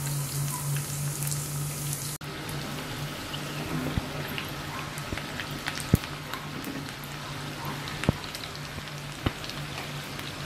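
Battered chicken pieces deep-frying in very hot oil during their second fry: a steady sizzle with scattered crackles, and a few sharp clicks spread through it.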